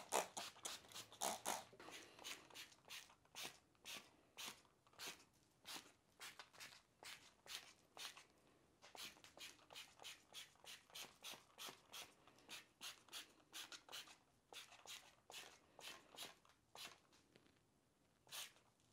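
Hand trigger spray bottles being pumped over and over, a short faint spritz with each squeeze, about two a second at first and a little slower later, with a brief pause near the end.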